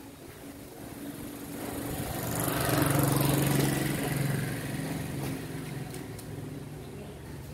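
A motorbike engine passing by, growing louder to a peak about three seconds in and then fading away.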